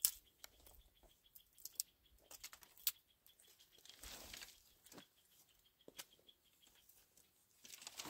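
Faint scattered crunches and rustles of footsteps over dry grass and loose stones, with a few sharper clicks.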